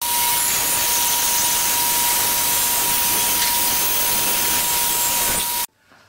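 Bandsaw running and cutting Schedule 40 PVC pipe: a steady loud hiss with a constant whine, cutting off suddenly about five and a half seconds in.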